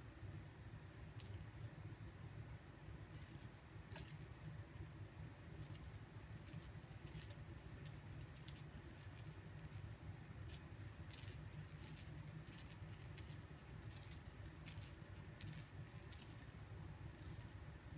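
Faint, light scratching on a cloth bedsheet in short, irregular strokes, over a steady low hum.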